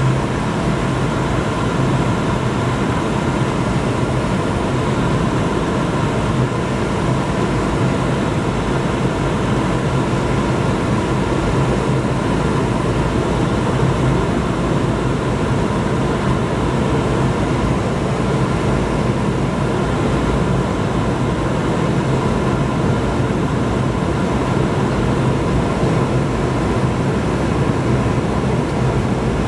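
Steady cabin noise of a jet airliner climbing after takeoff: engine drone and rushing air heard from inside the cabin, with a low hum and a higher steady tone underneath.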